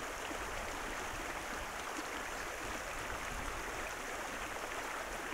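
Stream flowing: a steady, even rush of water.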